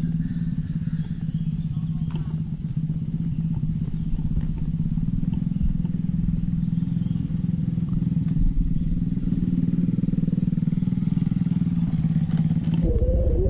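Small motorcycle engine running steadily while riding a rough dirt trail, heard from on the bike, with a steady high-pitched buzz over it. Both cut off suddenly near the end as music starts.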